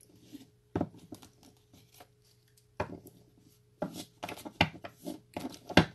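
Irregular knocks, rustles and crinkles of objects being handled close to the microphone, with the loudest knock near the end.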